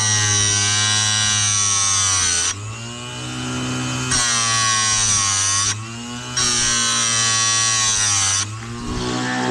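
Oregon electric chainsaw chain sharpener running, its grinding wheel brought down on the chain's cutter teeth in spells of about two seconds. Between grinds the sound drops back briefly to the motor's hum.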